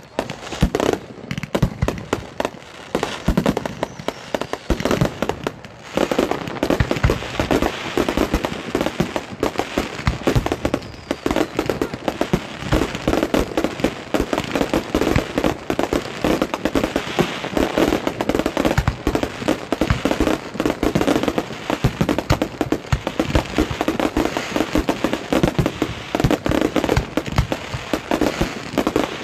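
Fireworks display firing a rapid, continuous barrage: launch thumps, bursting shells and crackling stars overlapping one another, with a brief lull about six seconds in.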